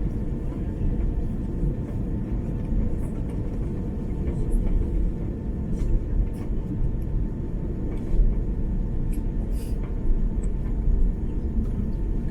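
Cabin noise inside an Airbus A330-300 taxiing after landing: a steady low rumble from the idling engines and the wheels rolling over the taxiway, with a faint thin whine and a few light ticks.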